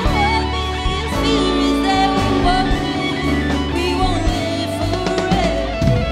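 A female singer sings a wavering, held melody over a live jazz-pop band of electric guitar, double bass and drums.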